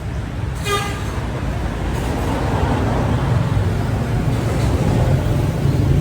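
Steady low hum of motor traffic or an engine running. A short pitched toot comes just under a second in.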